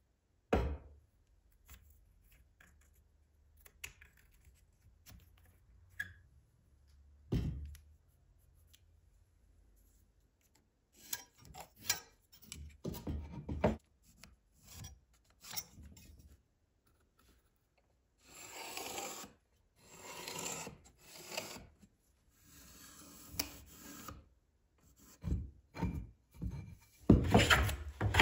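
Hand woodworking on a wooden hammer-handle blank. There is a sharp knock about half a second in and another at about seven seconds, with faint scratching from marking out. From about eleven seconds comes a run of rasping strokes, and it ends in loud, separate hand-plane strokes shaving the blank.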